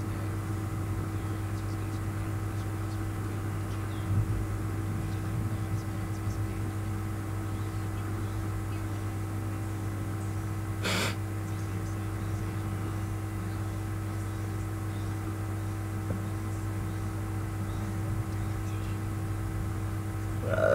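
Steady low room hum with a few faint constant tones above it, like a fan or electrical equipment running. One short breathy noise comes about eleven seconds in.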